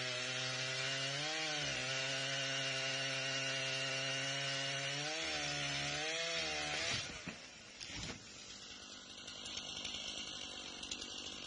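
Petrol chainsaw running at full throttle, cutting through a fallen tree trunk, its pitch dipping twice as it bogs under load. About seven seconds in the cut goes through: a crack and thump of wood as the root-plate stump swings back upright, and the saw drops to a quieter running.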